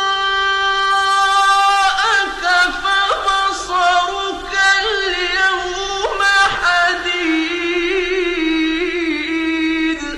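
A single voice reciting the Quran in Arabic in the melodic tajweed style, drawing out long notes that waver and glide in pitch.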